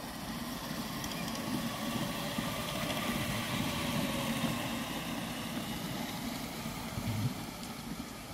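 3½-inch gauge miniature train running along a raised track, a steady low rumble of small wheels and locomotive that swells as it passes close and eases off as it moves away, with a short knock about seven seconds in.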